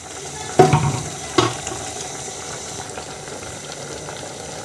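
Pot of greens boiling on a gas burner, a steady hiss of boiling water, with two short knocks about half a second and a second and a half in.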